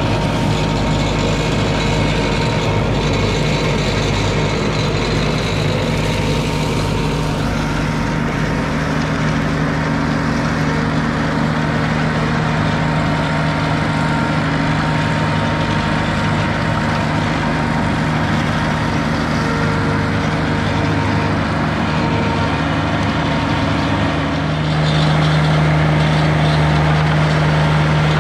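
IRUS Deltrak 2.5 remote-controlled tracked slope mower running steadily with its front flail mulcher, the engine holding an even pitch. Near the end the sound gets a little louder.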